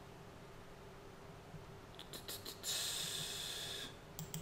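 Computer mouse clicking, a few quick clicks about two seconds in and two more near the end. Between them, a breathy hiss lasts about a second and is the loudest sound.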